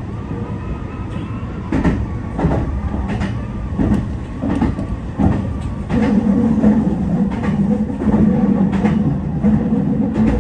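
Meitetsu electric train running, heard from the cab: wheels clacking over rail joints about every 0.7 s over a steady low running hum, which grows louder about six seconds in.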